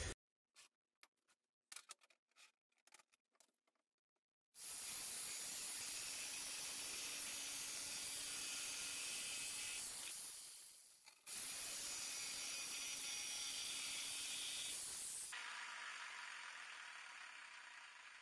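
Angle grinder cutting lengthwise through PVC drain pipe, heard quietly as a steady hiss. It runs for about six seconds, winds down, starts again a second later for a second cut, and tapers off near the end.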